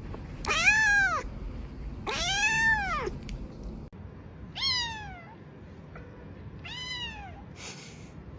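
Kitten meowing: four high-pitched meows, the first two rising then falling, the last two shorter and falling, each further apart.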